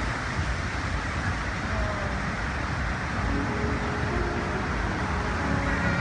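Fountains of Bellagio water jets spraying and splashing as a steady rushing noise with a low rumble. Faint show music comes in from about halfway through and grows near the end.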